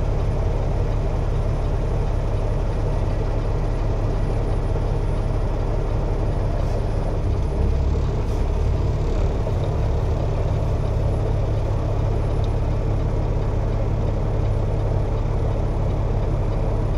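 Semi-truck diesel engine running, heard from inside the cab as a steady low hum.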